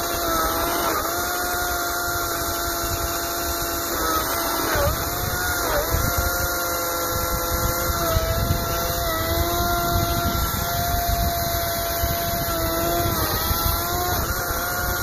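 Ego 56-volt brushless cordless chainsaw running with a steady electric whine as it cuts into a log. Its pitch dips briefly about four and a half seconds in and again near the end, as the chain bogs under load in the cut.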